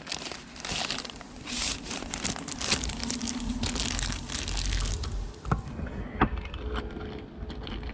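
Packaging crinkling and rustling as a new tailgate gas strut is pulled out and the old strut is dropped in, then two sharp knocks.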